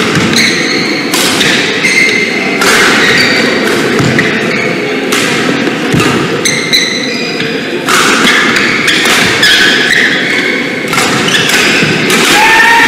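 Badminton hall sounds: court shoes squeaking on the playing mat, with thuds of footwork and shuttlecock hits, echoing through a large hall. One squeak falls in pitch near the end.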